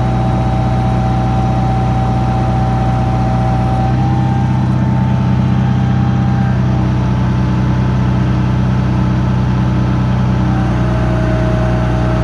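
Backhoe engine running steadily with the throttle up, with a higher hydraulic whine that shifts pitch about 4 seconds in and again near the end as the stabilizer legs are raised slowly.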